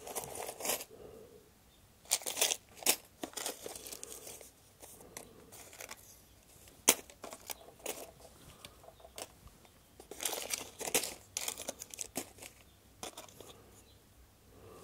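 A small plastic bag of metal washers crinkling as it is handled, then loose steel washers clinking and shuffling as a hand sorts through a plastic tub of them. Irregular short rustles throughout, with one sharp click about seven seconds in.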